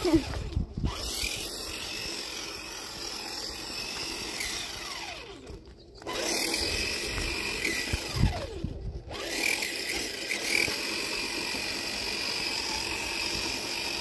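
Small electric motor of a toy remote-control car whining as it drives, its pitch gliding up and down as it speeds up and slows, cutting out briefly three times. A few low thuds near the start and about eight seconds in.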